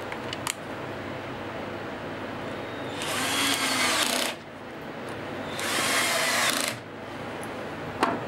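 Drill-driver driving wood screws into an ash blank: two runs of about a second each, a few seconds apart, with a few light clicks around them.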